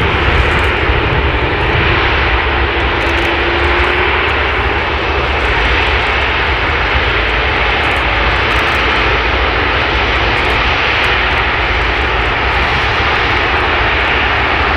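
Airbus A380's Rolls-Royce Trent 900 turbofan engines running at low taxi power as the aircraft rolls along the taxiway: a loud, steady jet engine noise with a deep rumble underneath.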